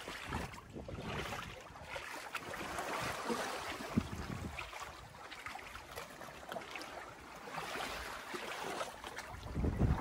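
Surf washing on a beach, with strong wind buffeting the microphone; the low wind rumble grows stronger near the end.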